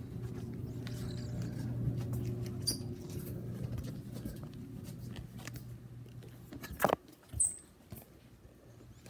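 Scratchy rubbing of a phone's microphone against a cotton shirt while the phone is handled, over a low steady hum, with one sharp knock about seven seconds in.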